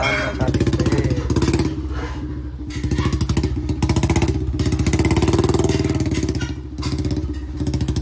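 Royal Enfield Bullet 350's single-cylinder engine running in low gear as the motorcycle is paddled over rocks through a stream, the revs rising and falling several times.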